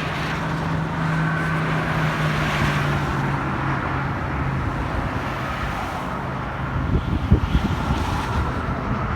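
Steady road-traffic noise with a low hum that fades out. From about seven seconds in, strong wind gusts buffet the microphone.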